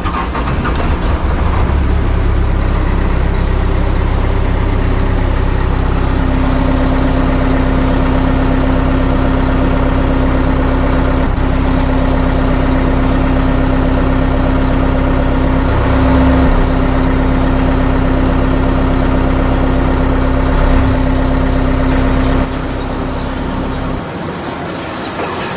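A heavy vehicle engine running steadily, a low rumble with a steady hum; it drops away suddenly about 22 seconds in, leaving a quieter sound.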